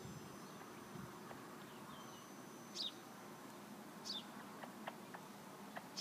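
Young chicks peeping faintly: a few single high, falling peeps spaced a second or more apart, with a few light ticks.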